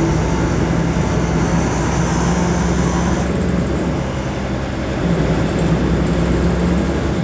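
Road traffic dominated by a heavy vehicle's engine running steadily with a low drone. A high hiss above it stops about three seconds in.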